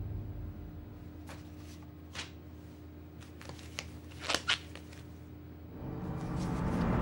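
Short crisp paper rustles and clicks, as of torn photograph pieces being handled, over a low steady drone; a few scattered ticks, then a quick cluster of louder ones past the middle, and a deep rumble swelling near the end.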